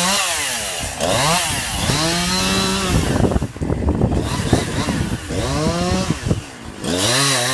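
Two-stroke chainsaw cutting through branches of a fallen ash tree. The throttle is opened and released over and over, so the engine revs up, holds, and falls back several times, with a rougher, lower-running stretch in the middle.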